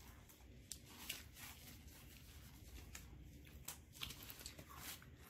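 Faint chewing of a crisp food, with a scattered handful of soft, short crunches over a low room hum.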